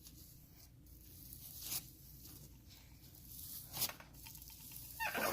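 Cloud slime being stretched and pulled apart by hand, giving faint tearing, crackling sounds with a couple of louder crackles.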